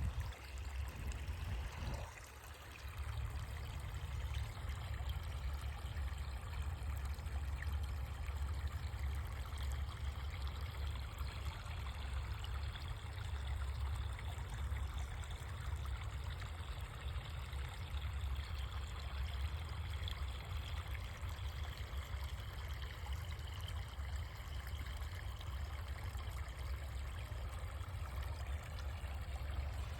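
Water running steadily, like a small stream, with a steady low rumble beneath it and a brief dip in level about two seconds in.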